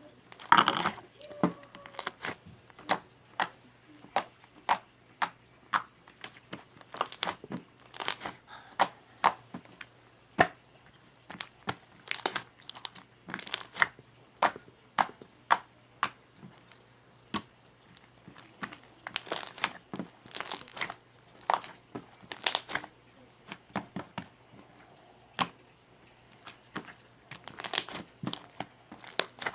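Clear slime full of air bubbles being played with, giving irregular sharp clicking pops, a few a second with short pauses.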